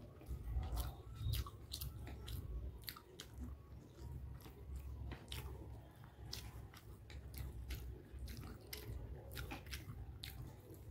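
A person chewing chicken hakka noodles close to the microphone, with many short irregular clicking mouth sounds, several a second. A low steady rumble runs underneath.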